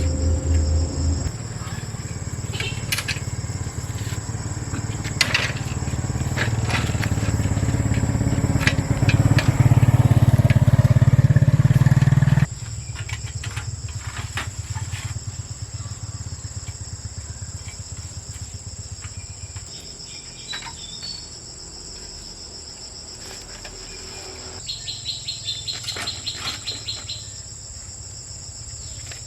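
Insects, crickets or cicadas, buzzing steadily at a high pitch. For the first twelve seconds or so a loud low rumble lies under them and then cuts off suddenly. Near the end there is a short run of fast, rhythmic chirping pulses.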